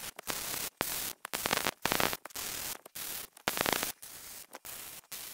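Wire-feed welding arc crackling and sputtering on square steel tubing in about ten short bursts of roughly half a second each, broken by brief gaps, as the seams of the frame are welded solid.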